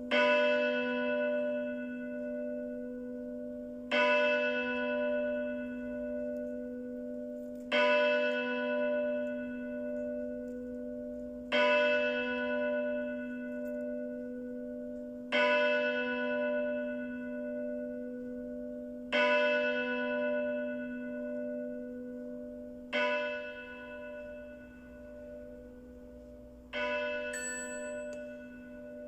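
A single church bell tolling slowly, struck eight times at intervals of about four seconds. Each stroke rings on and fades into a long, steady hum.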